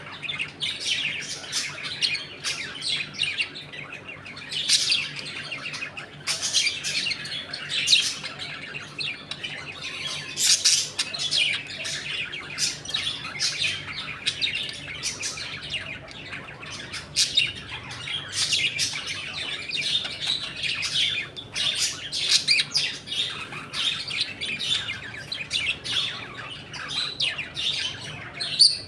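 A colony of budgerigars chattering: many birds chirping and warbling at once in a busy, overlapping stream, with louder single calls standing out every second or so.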